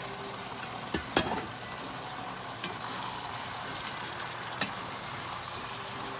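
Sliced bell peppers sizzling steadily in a hot stainless steel sauté pan while being stirred, with a metal ladle clinking against the pan a few times: twice about a second in, again near the middle, and once more later.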